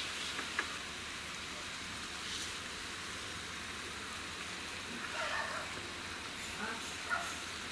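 Steady background hiss, with a few faint, soft handling sounds of hands coiling a thin sheet of oiled wheat parotta dough, mostly in the second half.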